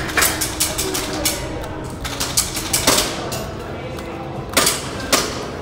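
A string of sharp, irregularly spaced cracks and clicks, about a dozen, over a steady low hum, with faint voices underneath.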